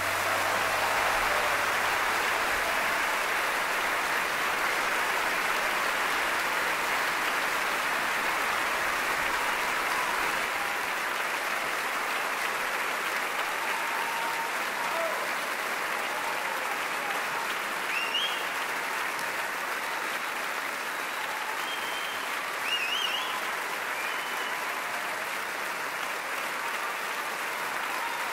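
Concert-hall audience applauding steadily just after an orchestral piece ends, with scattered cheers rising above the clapping in the second half.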